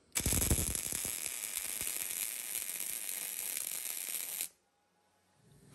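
Wire-feed welder's arc crackling steadily for about four seconds while welding a cracked steel joint, starting and stopping abruptly.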